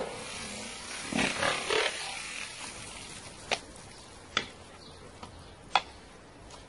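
Water spilling and splattering from a row of plastic water bottles just slashed open by a blade, fading away over the first couple of seconds. A few sharp clicks follow.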